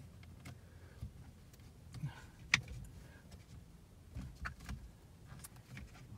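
Handling noises from a clip-on mirror dash camera being settled onto a car's rearview mirror: scattered light clicks and knocks, with one sharper click about two and a half seconds in, over a low steady hum.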